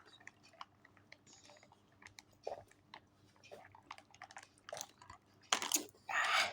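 A small child drinking iced tea: scattered small sipping, mouth and cup clicks, then two short, loud, noisy bursts near the end.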